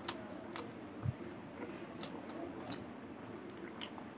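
Close-up eating sounds of a man chewing a mouthful of rice and pork curry, with short wet mouth smacks and clicks every half second or so. A low thump comes about a second in.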